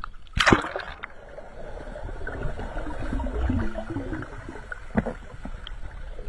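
A sharp knock about half a second in and a lighter one near five seconds, over steady water noise around a small boat.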